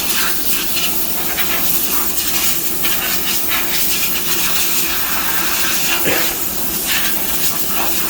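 Powder coating gun blowing powder with compressed air: a steady hiss.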